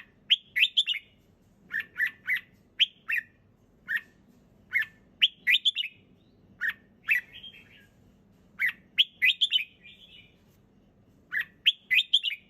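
Red-whiskered bulbul singing short, clear phrases of a few quick whistled notes, repeated every second or two with brief pauses between them.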